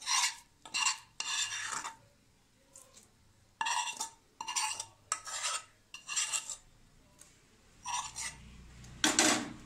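Spoon scraping fried grated apple out of a karahi into a pan of thickened milk: a string of short scrapes against metal with pauses between, and a louder clatter near the end.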